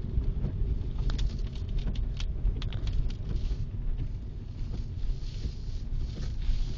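Low rumble of wind buffeting a phone microphone over road traffic noise, with a run of light clicks and taps about a second in.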